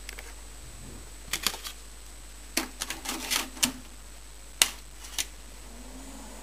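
Clicks and scrapes of a floppy disk being pushed into an old desktop PC's drive, then a sharp, loud click of the rocker power switch being pressed. A low hum starts near the end as the computer powers up.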